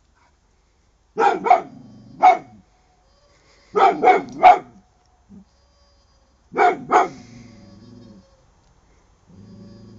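Dog barking in three bunches, about eight barks in all, each bunch trailed by a lower drawn-out sound. These are alarmed barks at a hooting owl ornament that scares it.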